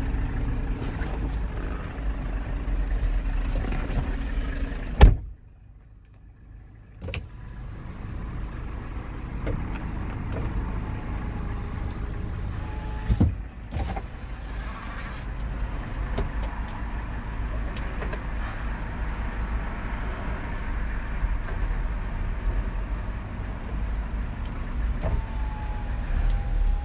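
Inside the cab of a Kia Bongo III 1.2-ton truck: the engine idling with a steady low rumble, and the electric window motor whining as the door glass moves, twice, the first run ending in a thunk as the glass stops. A sharp knock about five seconds in, after which the engine sound drops away for about two seconds.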